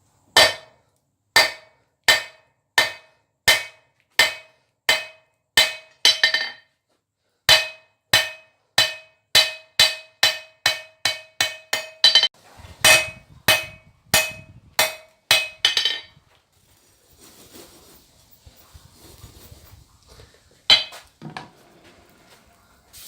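Hand hammer striking hot steel on an anvil, each blow ringing, while forging down a tong blank for chain maker's tongs. A steady run of blows, a brief pause, then a faster run, stopping a few seconds before the end after two final blows.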